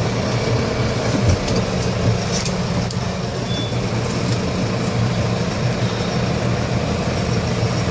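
New Holland T4.95 tractor's diesel engine running steadily at idle while the tractor drags a big ash tree on a chain through a wet ravine, in four-wheel drive with the differential lock engaged. A few short knocks come in the first few seconds.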